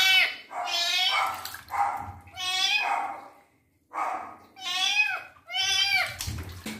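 A young kitten meowing over and over, about six high-pitched meows in quick succession with a brief pause a little past halfway, as it protests being bathed.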